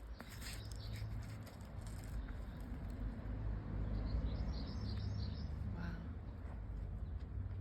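Birds chirping, a short run of high chirps about four seconds in, over a steady low rumble.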